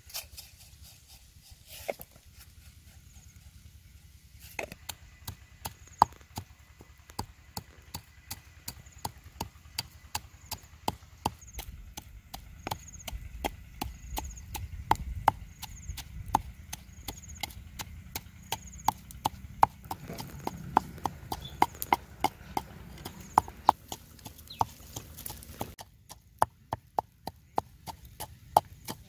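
Stone pestle pounding chillies and garlic in a mortar: after a few scattered knocks, a steady run of sharp knocks about two to three a second begins about four seconds in.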